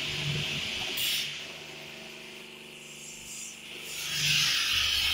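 High-pressure water jets of an automatic jet car wash gantry hissing against a car. The spray stops about a second in and starts again about four seconds in, with a faint motor hum underneath.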